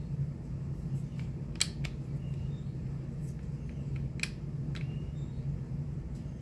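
Stoeger STR9S pistol being handled, giving a handful of short, sharp clicks from the slide and parts, the sharpest about a second and a half in, over a steady low hum.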